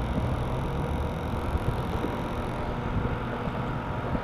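Steady outdoor background noise: wind on the microphone over a constant low rumble, with no distinct events.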